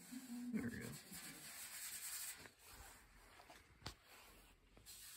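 Faint rubbing of a bare hand over the sanded paint and bare metal of a VW Beetle decklid, with a brief low murmur near the start and one light tick near the end.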